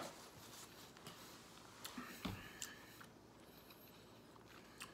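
Very quiet room tone with faint eating sounds: a few soft clicks and taps around two seconds in and once more near the end.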